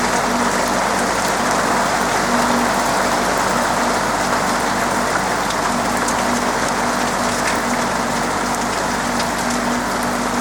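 Steady heavy rain falling on a roof, a dense even hiss with fine drop ticks through it. A faint low hum comes and goes underneath.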